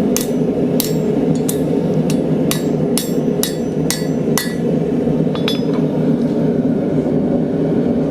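Hammer blows on a thin steel spacer to straighten out its curve: about nine sharp ringing strikes, roughly two a second, then a lighter one about five and a half seconds in. A steady low roar runs underneath throughout.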